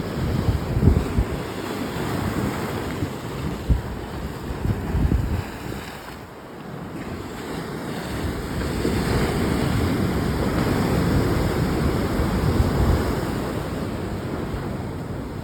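Ocean surf washing against the shore, with wind gusting on the microphone; the wind dies down briefly midway, then the surf and wind build again.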